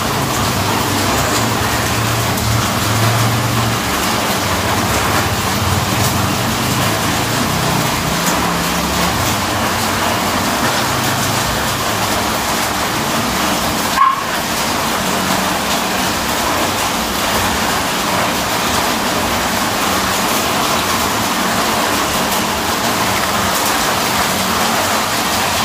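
Steady background noise with a low hum, and one short click about fourteen seconds in.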